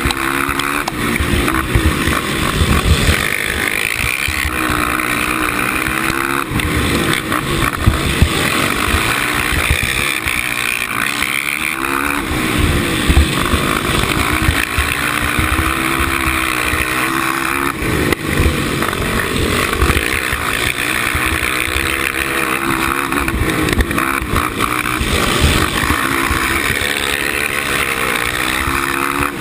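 Suzuki LTR450 quad's single-cylinder four-stroke engine racing hard, heard on board, its revs rising and falling again and again over a heavy rough rumble.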